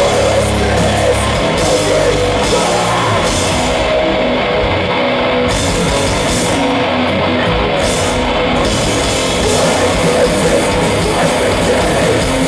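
A metal band playing live at full volume: distorted electric guitars, bass and drums in a dense, steady wall of sound. The cymbals drop out twice for a moment partway through.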